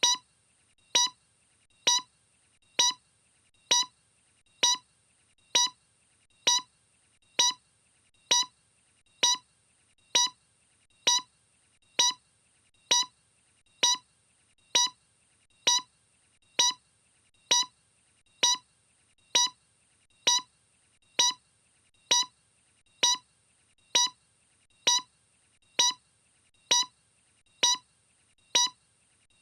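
A short electronic beep repeating steadily, a little faster than once a second, each beep a brief pitched tone at the same pitch and loudness.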